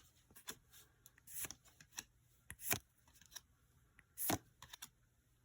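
Yu-Gi-Oh booster pack being opened by hand: a series of short crinkles and rustles of the foil wrapper and the cards inside, the loudest about four seconds in.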